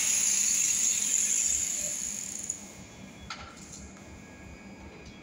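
High-pitched whine and hiss of an angle grinder, fading away over the first two to three seconds. A single light metallic clink of stainless steel tubing being handled follows about three seconds in.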